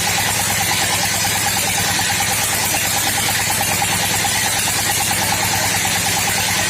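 Old sawmill machine running steadily, with a rapid, even engine pulse and a steady whine.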